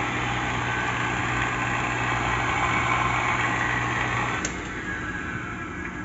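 Metvisa industrial blender's electric motor running steadily on freshly replaced 6203 ZZ ball bearings, test-run after the repair. A click about four and a half seconds in as it is switched off, after which the sound drops as it winds down.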